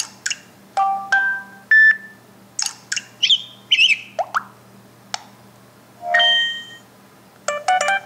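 A Samsung Galaxy S5's speaker playing one short notification-tone preview after another, a quick run of about a dozen brief tones and chimes as each sound in the list is tapped.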